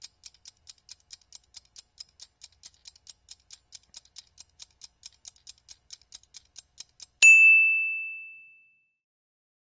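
Steady, faint ticking, about five ticks a second, like a timer running down. About seven seconds in it gives way to a single bright bell ding, the loudest sound, which rings out and fades over about a second and a half.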